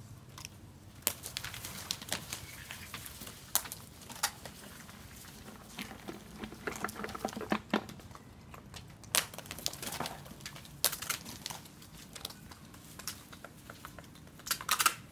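Crocodiles crunching snail shells and crabs in their jaws: irregular sharp cracks and snaps, with a quick cluster of them near the end.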